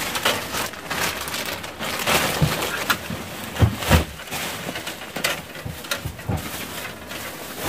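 Rummaging through stored belongings: irregular rustling and clattering of objects being moved and handled, with a few sharper knocks, the loudest about three and a half to four seconds in.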